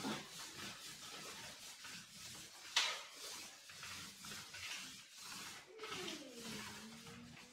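Paint roller rolling over a painted wall in repeated strokes, a rough rubbing swish. A sharp tap comes about three seconds in, and a whining tone dips and then rises near the end.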